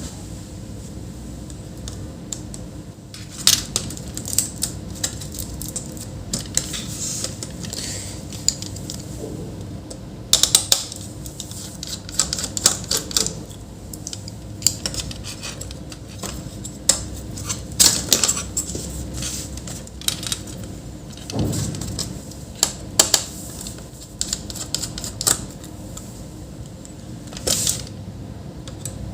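Irregular small clicks, taps and snaps of hands taking a laptop apart: screws, small parts and plastic case pieces handled and set down, sometimes several clicks in quick succession.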